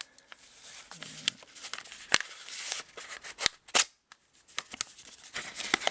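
A mail package being cut open: a run of sharp snips and clicks with packaging rustling between them. The loudest snips come about two seconds in and twice around three and a half seconds in.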